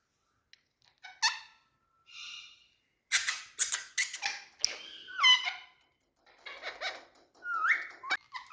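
Indian green parrot calling: a sharp squawk about a second in, a short buzzy note, then a run of harsh screeches and chirps with quick rising and falling sweeps.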